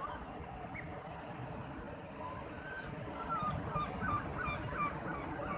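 Steady wash of sea waves with a quick series of short bird calls, about three a second, starting a little before halfway in.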